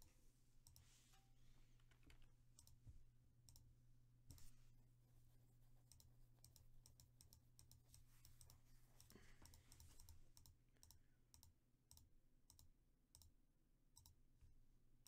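Near silence with faint, quick computer mouse clicks, a few a second in an irregular run, over a low steady hum.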